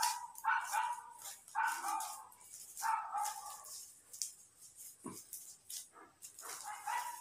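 A dog barking repeatedly in a short series of barks, louder in the first half and fainter near the end.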